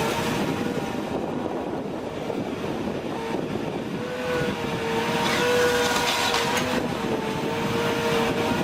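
Heavy machinery running: a steady engine drone with a held whine that wavers slightly in pitch.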